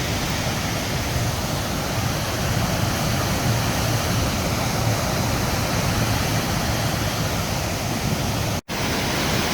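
Wildwood Falls on the flooded Row River, a steady heavy rush of high water pouring over the falls, with a split-second gap near the end.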